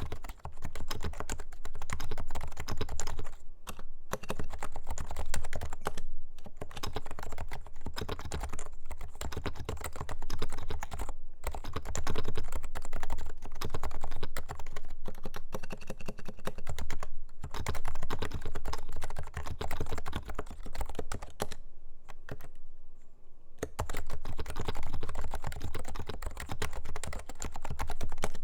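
Fast continuous typing on a Leopold FC660C Low-Noise keyboard with silenced Topre electrostatic capacitive switches. The keystrokes run in quick runs, broken by brief pauses, one of them more than a second long a little after two-thirds of the way through.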